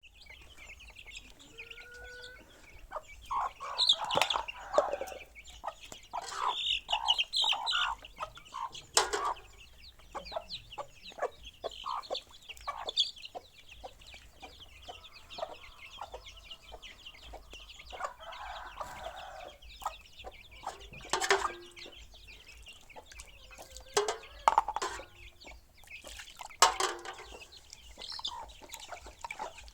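Chickens clucking and calling irregularly, with a few louder, sharper calls spread through.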